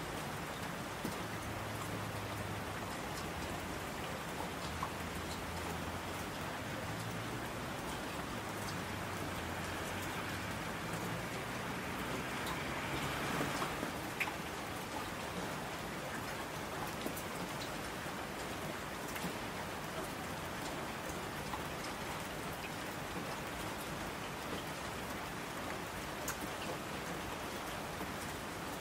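Steady rain with scattered patter of drops, swelling slightly about twelve to fourteen seconds in, over a faint low rumble in the first half.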